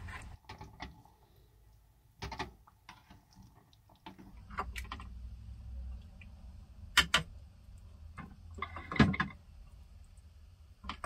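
Spoon and spatula knocking and scraping against a saucepan and a bowl as stew is served into the bowl: a scatter of separate clinks and knocks, two close together about seven seconds in and the loudest about nine seconds in.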